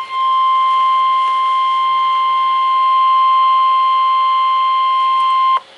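NOAA Weather Radio 1050 Hz warning alarm tone, a single steady electronic tone heard through a Midland WR100 weather radio's speaker, signalling that a warning message follows. It cuts off suddenly near the end.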